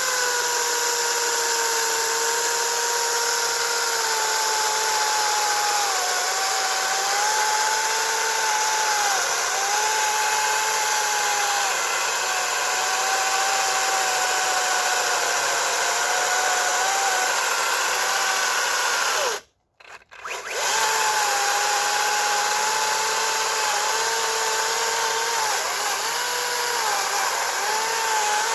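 Makita DUC355 dual-battery cordless chainsaw cutting through a pine log: a steady electric-motor whine whose pitch sags repeatedly as the chain bites into the wood and then recovers. About two-thirds of the way through it cuts out for about a second, then runs again.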